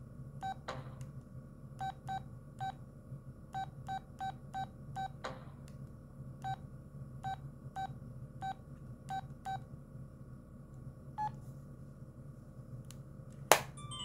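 Audiovox CDM-8940 flip phone keypad beeps: short beeps all of the same pitch, some in quick pairs, as keys are pressed to step through its menus. They stop about two-thirds of the way through. Near the end comes a single sharp snap, the loudest sound, as the flip is closed.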